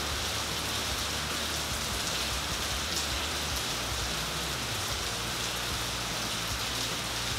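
Heavy rain falling, a steady even hiss of rain noise with no break.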